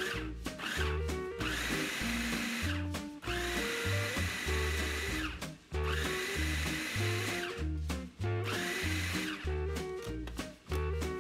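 Electric food processor running in several pulses of a second or two each, its blade chopping cauliflower into rice-sized bits with a high whine. Background music with a regular bass beat plays underneath.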